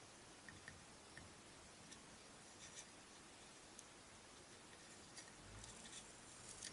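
Near silence with a steady hiss, broken by faint scattered ticks and light rustles. These come from metal tweezers and thread being handled while rigging a wooden model ship, and grow a little busier near the end.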